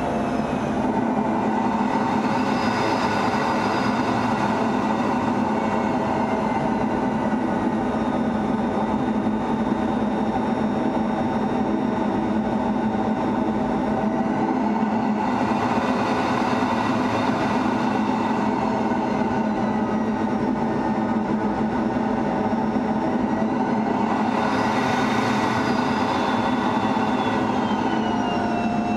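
F-16 fighter jet's engine and rushing air heard inside the cockpit: a steady loud rumble with whining tones that slide slowly up and down in pitch. A brighter hiss swells up three times, about two seconds in, about midway and near the end.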